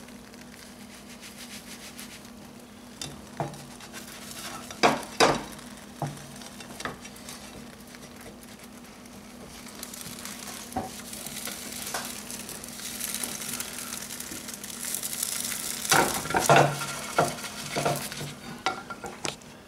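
A crepe frying and sizzling in a pan, the sizzle growing louder partway through. A spatula scrapes and knocks against the frying pan as the crepe is loosened, flipped and lifted, with a few sharp knocks about five seconds in and a louder cluster near the end.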